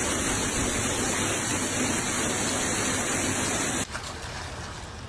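Steady, loud rushing of a storm, heavy rain pouring with wind. It cuts off abruptly near the end to a quieter rush.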